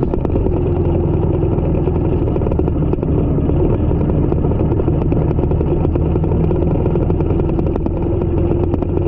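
Motorcycle engine running at a steady cruising speed while riding, heard close up from a camera mounted on the bike.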